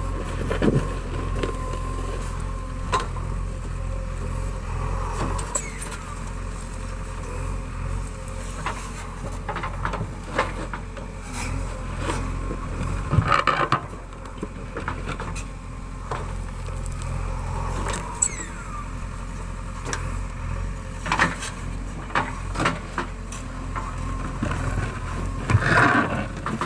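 JCB 3DX backhoe loader's diesel engine running steadily with a low rumble, under repeated knocks and clanks from the machine at work; the loudest clanks come about halfway through and near the end.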